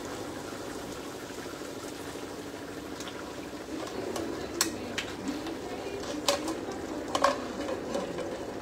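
Pot of linguine cooking in tomato sauce, bubbling steadily, while a wooden spatula scrapes lobster pieces out of a metal frying pan into it. A few sharp clicks of spatula on pan come in the second half.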